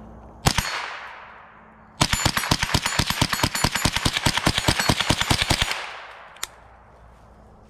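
Semi-automatic .22 rifle firing: a single shot about half a second in, then, after a pause, a rapid string of shots several a second for nearly four seconds, with the sound trailing off through the woods after each.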